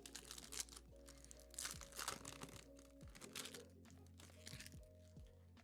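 Faint crinkling and rustling of trading cards and their packaging being handled, in several short spells, over quiet background music.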